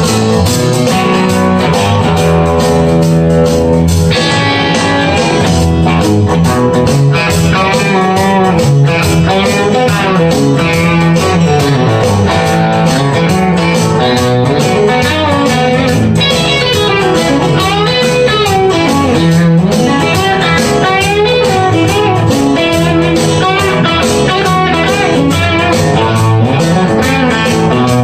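Fender Modern Player Telecaster played through a modded Bugera V55 valve amp and a Marshall 2x12 cabinet with Celestion Vintage 30 speakers, improvising honky-tonk style single-note licks with string bends, recorded on a phone.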